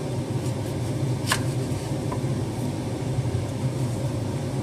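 Steady low hum, with a knife working a spring onion on a wooden cutting board: one sharp tap about a second in and a fainter one shortly after.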